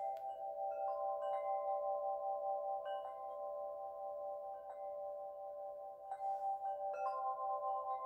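Calm ambient outro music: a few steady held tones with wind-chime notes ringing in scattered strikes over them.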